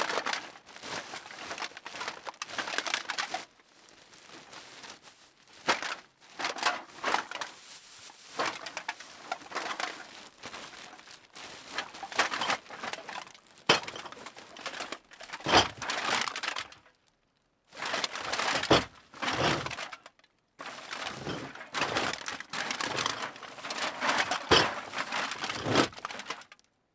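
Empty metal cans being dropped and shoved into a bag: irregular clinks and clatters of cans knocking together, mixed with rustling of the bag, in bursts with short pauses, stopping near the end.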